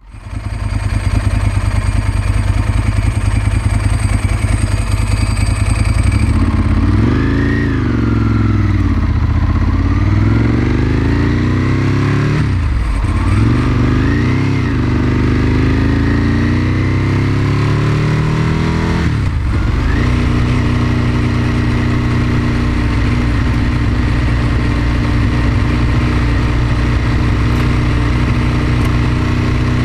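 Ducati 996's 90-degree L-twin engine heard from the bike itself. It runs steadily for the first few seconds, then its pitch rises and falls as the bike gets under way. It dips sharply about 12 and 19 seconds in as gears are changed, then holds a steady pitch while cruising.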